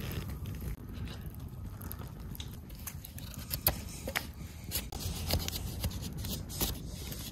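Knife blade scraping and shaving the bark off a green wooden stick in short, irregular strokes.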